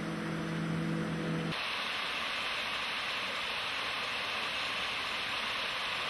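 A bass boat's outboard motor running with a steady hum as the boat planes across the lake. About a second and a half in, this gives way abruptly to the steady rushing hiss of a small waterfall pouring into the lake.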